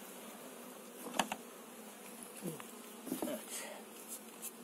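Honeybees buzzing in a steady hum around an opened hive, with one sharp knock about a second in from the wooden comb frame being worked loose.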